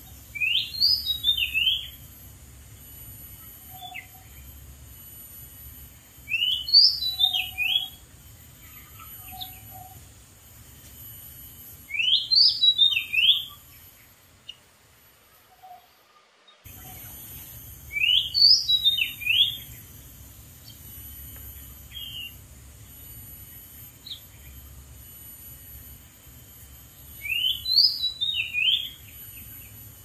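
Oriental magpie-robin singing: five short whistled phrases, each about a second and a half long, coming roughly every six seconds, each opening with a quick rising note followed by falling ones.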